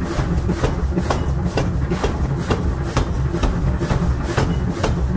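Power forging hammer striking a red-hot steel billet in rapid, even blows, about three a second, over a steady low rumble. The blows are upsetting the billet into a blank for a bearing ring.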